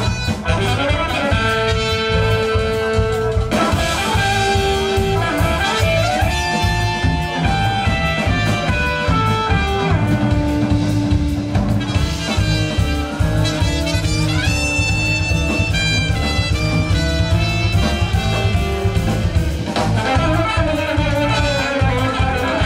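Live band playing an instrumental jazz-rock piece: a horn melody of long held notes, moving up and down in steps, over drum kit, bass and guitar.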